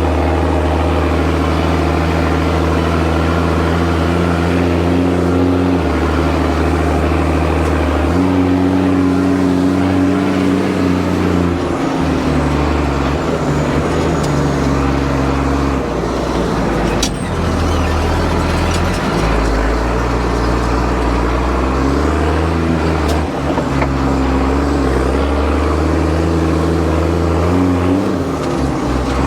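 Tractor engine running under load, its note stepping up and down every few seconds as revs change, with a couple of brief revs near the end.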